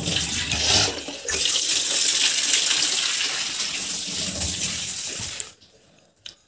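Water running from a tap into a sink: a steady rush that dips briefly about a second in and then stops abruptly near the end.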